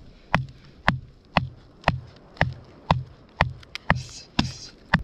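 A knife being batoned through a soft, dry driftwood log: a wooden baton strikes the back of the blade in a steady rhythm about twice a second, each blow a sharp knock with a dull thud, driving the blade down to split the log.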